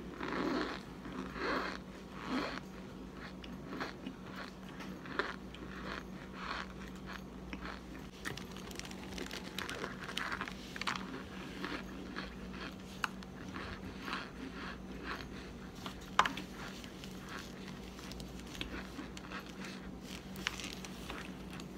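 Biting into and chewing a packed cornstarch brick: a long run of crunching, crackling bites. The bites are loudest in the first couple of seconds, and there is one sharp crack about three-quarters of the way through.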